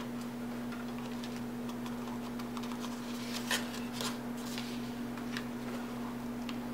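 Sheets of card stock being handled and pressed together, soft paper rustles and small clicks, a few of them sharper around the middle, over a steady low hum.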